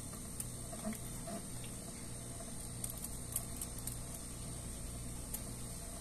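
Quiet room tone: a steady low hum with a few faint, soft clicks.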